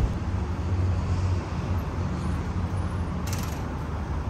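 Car running, heard from inside the cabin: a steady low engine hum with road noise, and a brief hiss about three seconds in.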